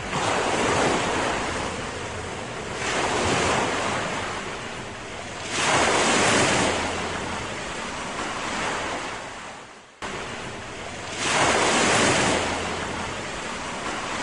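Ocean surf: waves washing in, the noise swelling and falling back every few seconds, with an abrupt cut about ten seconds in, where it restarts.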